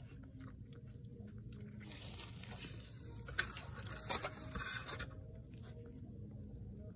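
A person eating a burger with dentures, with soft chewing and mouth sounds. About two seconds in, a few seconds of rustling noise begin, with a couple of sharp clicks.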